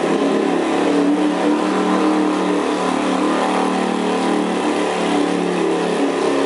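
Riding lawn mower engine running steadily at high throttle while pulling a weighted sled.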